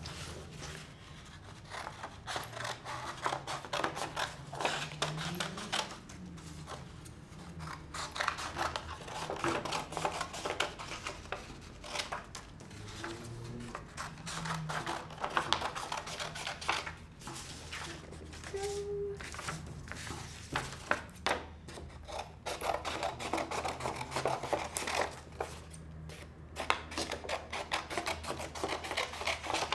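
Scissors cutting through folded construction paper: runs of quick snips with short pauses between.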